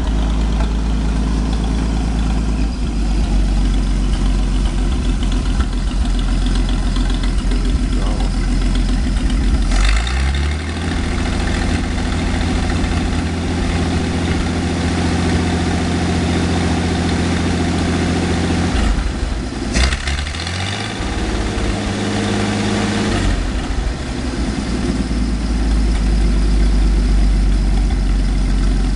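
Freshly rebuilt Continental F227 six-cylinder flathead gasoline engine running, being set up after the rebuild. It idles, is brought up to a higher steady speed about ten seconds in, dips briefly and comes back up near twenty seconds, then drops back to idle a few seconds later.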